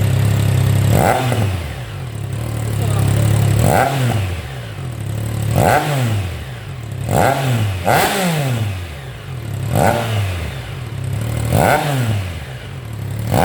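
Triumph Trident 660 inline-three engine idling through a gutted stock muffler, then blipped about seven times; each rev rises sharply and falls back to idle. The muffler's fibre packing is still wet.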